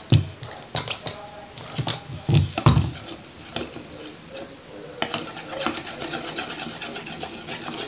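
Wooden spoon stirring slime in a ceramic bowl as borax water is mixed into the glue, with scattered clicks and taps of the spoon on the bowl and a few dull thumps about two and a half seconds in. The tapping grows busier about five seconds in.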